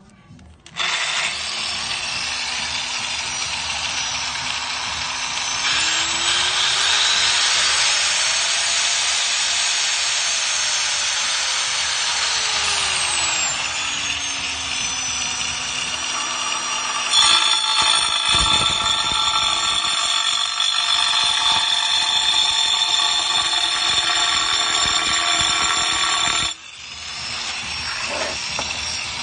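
Bosch GWS 900-100S variable-speed angle grinder with a 4-inch turbo diamond blade starting up and cutting ceramic tile. Its motor whine rises in pitch and falls back again; a little past halfway it gets louder and harsher, and it cuts off suddenly near the end.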